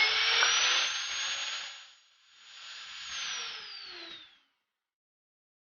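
Promotech PRO-36 magnetic drill running in two stretches. A high motor whine climbs in pitch during the first and slides down during the second, and the sound stops about four and a half seconds in.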